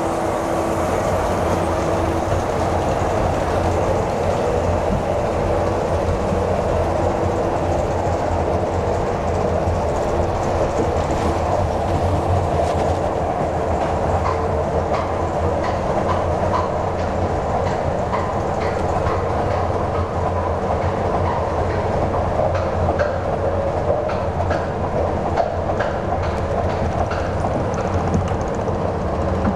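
L&T Systems compact roller coaster train rolling out of the station and being hauled up the lift hill: a steady mechanical rumble of the lift and wheels on steel track, with clicking from the anti-rollback from about twelve seconds in.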